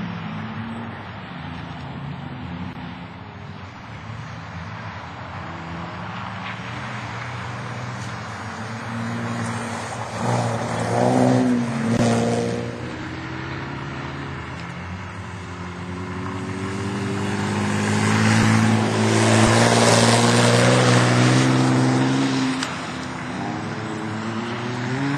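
Opel Omega race cars' engines running hard as they lap the track. One car passes close about ten seconds in, and a louder pass comes from about eighteen to twenty-two seconds in, the engine note rising and then falling.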